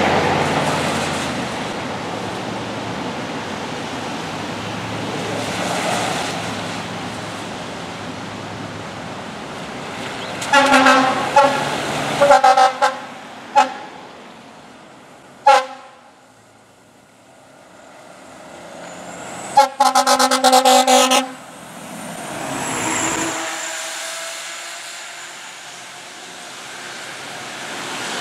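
Fire department aerial ladder truck responding: its engine rumbles, then its air horn sounds in a cluster of short blasts about ten seconds in, a single blast a few seconds later and a rapid string of blasts about twenty seconds in. A siren swells and fades between the blasts.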